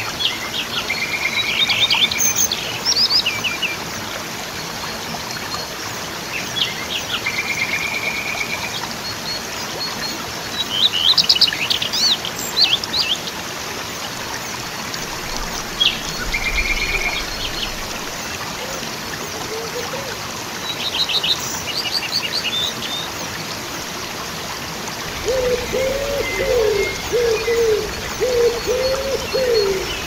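Waterfall rushing steadily, with songbirds giving short high chirps and trills every few seconds. In the last few seconds a bird adds low, repeated cooing notes.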